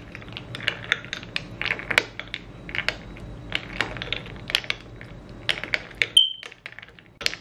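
Metal spoon stirring and scraping through fruit ice in a cut-glass dessert goblet, with rapid repeated clinks against the glass. One clink rings briefly about six seconds in, then the clinking pauses before a last knock near the end.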